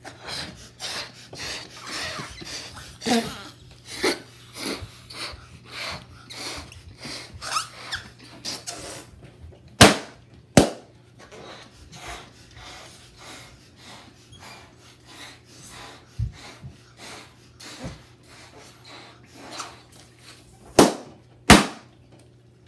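Latex balloons being blown up, with puffs of breath and squeaky rubbing of the rubber, broken by four loud, sharp balloon pops as they are burst with toothpicks: two in quick succession about ten seconds in and two more near the end.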